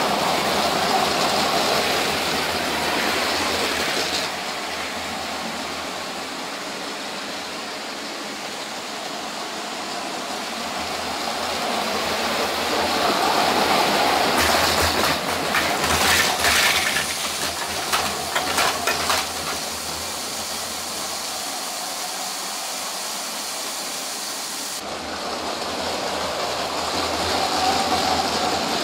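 LEGO City trains' battery-powered motors whirring as they run on plastic track, with wheels rattling over the joints. The sound swells as a train passes close and fades as it moves away, with a run of sharp clicks and clacks about halfway through.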